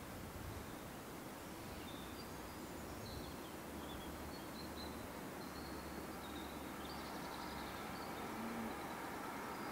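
Quiet countryside ambience: a faint steady background hiss with small birds chirping now and then in short, high calls. The background noise grows a little louder near the end.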